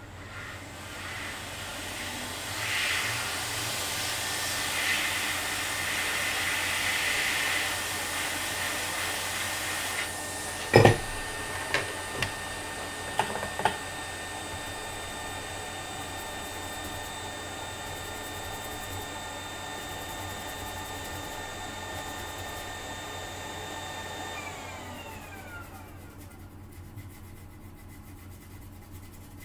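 Hot air rework station blowing steadily, heating a chip off a PCB, with a few sharp clicks around the middle. Near the end the blower is switched off and its fan winds down with a falling whine.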